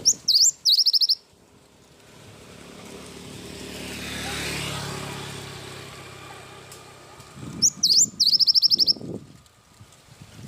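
Cinereous tit (gelatik batu) singing two short high phrases, each a couple of sharp up-slurred whistles running into a quick series of notes: one at the start and one about seven and a half seconds in. Between them a passing vehicle's engine hum swells and fades.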